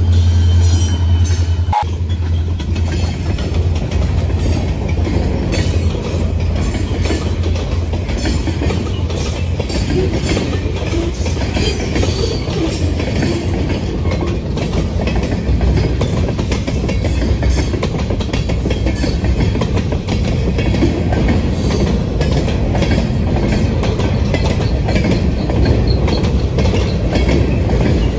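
Freight train cars (covered hoppers, tank cars, centerbeam flatcars) rolling past close by, wheels clicking steadily over the rail joints. In the first couple of seconds the low hum of the trailing diesel locomotive passes and drops away.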